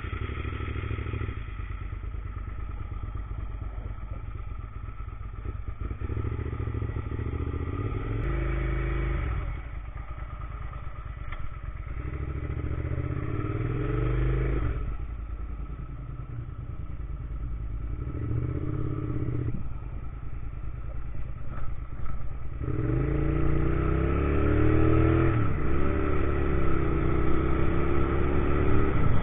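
A Suzuki SV650's 90-degree V-twin engine running at low revs, with several short rises in revs. In the last several seconds it accelerates, its pitch climbing, dropping once at a gear change, and climbing again.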